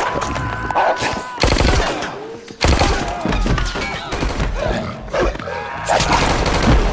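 An action-film fight mix: repeated gunshots and heavy impacts in quick succession, with short cries from men.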